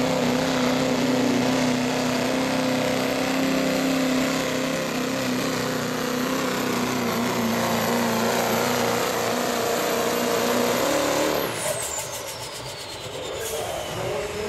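Pro street diesel pickup truck engine under full load pulling a sled, running steady with a high turbo whistle over it. About eleven seconds in, the engine is shut down at the end of the pull, and the turbo whistle falls steadily in pitch as it spools down.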